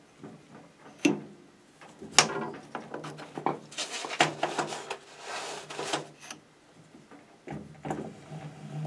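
Clicks and knocks of metal parts being handled at a lathe's three-jaw chuck, with about two seconds of noisy hiss in the middle.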